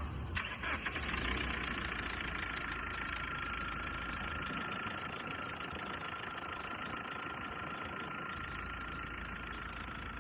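Mahindra Scorpio mHawk diesel engine starting about half a second in, then idling steadily with a thin high whine over its running. The mechanic takes this for the timing chain rubbing and wearing.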